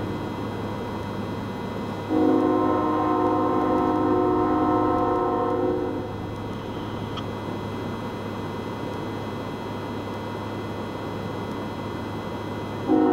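Approaching freight locomotive's air horn sounding a chord of several notes in long blasts: one ends just as the sound begins, a second starts about two seconds in and holds for nearly four seconds, and a third starts right at the end. Between blasts a steady low rumble continues.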